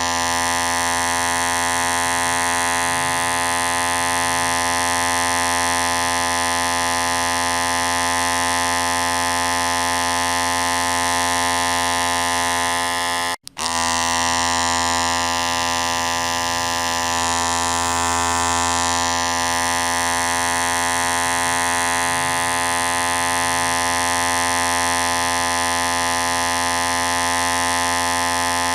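Electric hair clipper running with a steady vibrating buzz. It cuts out for a split second about halfway through, then carries on unchanged.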